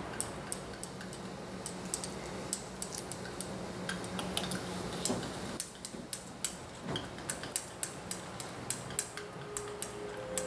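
Glass stirring rod clinking against a small glass beaker as borax solution is stirred quickly into clear PVA glue, making quick, irregular ticks, several a second, while the mixture cross-links into slime.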